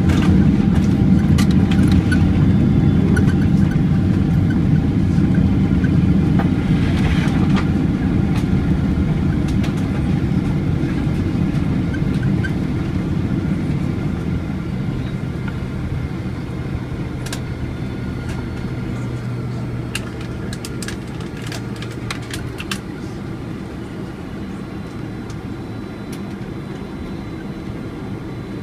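Boeing 767-400ER cabin noise heard from a window seat during the landing rollout: the rumble of the General Electric CF6 turbofans and the rolling on the runway fades steadily as the airliner slows and turns off toward the taxiway. There are a few faint clicks and rattles from the cabin.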